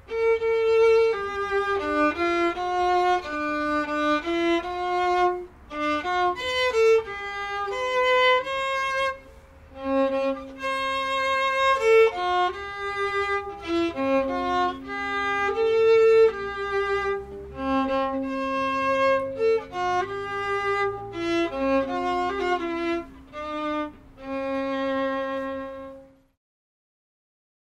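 Solo violin playing a melody, one note at a time with several long held notes, ending on a held note near the end.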